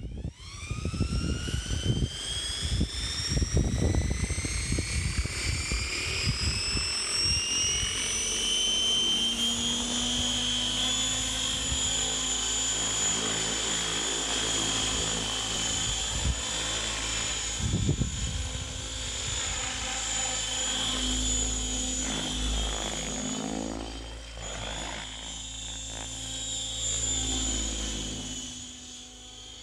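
Electric RC helicopter, a Thunder Tiger Raptor E700 with brushless motor, spooling up: a rising whine that climbs for about ten seconds and then holds steady as the Spirit governor holds head speed. Low buffeting in the first few seconds. Near the end the sound dips and swells as the helicopter flies.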